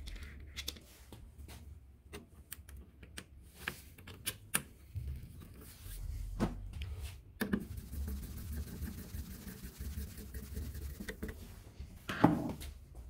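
Handling noise from the opened flat-screen TV set: scattered light clicks, taps and scratches, with a louder knock near the end, over a low steady hum.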